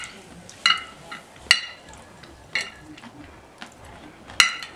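Cutlery and crockery clinking: four sharp, ringing clinks spread out over a few seconds.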